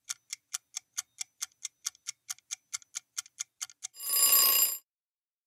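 Countdown-timer sound effect: a clock ticking fast and evenly, about five ticks a second, then about four seconds in, as the timer runs out, a bright bell-like ding that cuts off after under a second.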